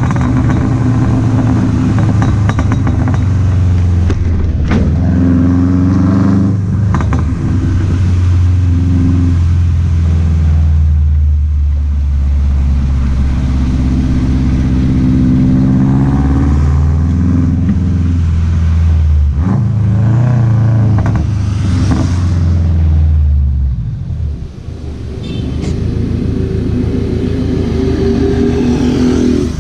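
Subaru flat-four boxer engine's exhaust rumble as the car accelerates, its pitch rising and falling several times through the gears. The note drops off briefly near the end, then picks up again.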